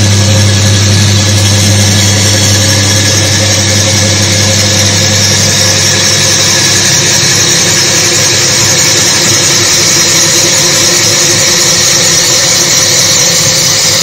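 Friction test machine running under rising load: its electric motor spins the test ring against the loaded block with a steady low hum and a high hiss. It runs smoothly without seizing as the pressure is raised.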